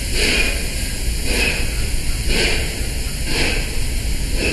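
Steam-hauled passenger train moving slowly past, with a regular whooshing beat about once a second over a low rumble.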